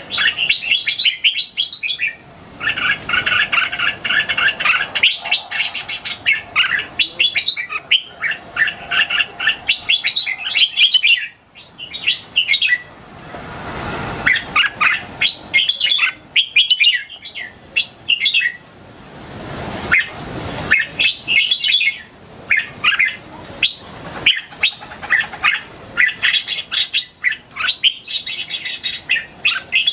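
A young red-whiskered bulbul singing: phrase after phrase of quick, bright chattering notes with short pauses between. Twice, about halfway through and again a little later, brief rushes of hiss-like noise come in under the song.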